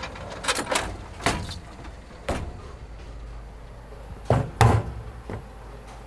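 A string of sharp knocks and bangs at uneven intervals over a low steady hum, the loudest pair coming about four and a half seconds in.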